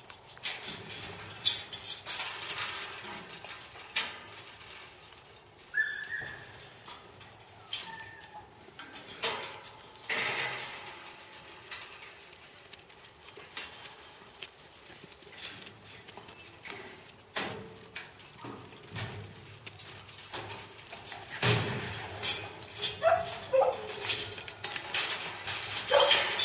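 Irregular clanks, knocks and rattles of steel sheep-yard panels and gates as a mob of sheep jostles along the race, growing busier near the end. A few short animal calls are heard, one about six seconds in and one falling call near the end.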